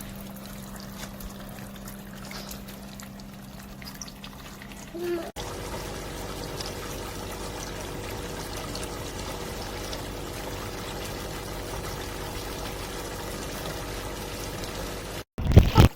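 Water pouring and trickling through a plastic kids' water table, steady under a low hum, with a few loud bumps near the end.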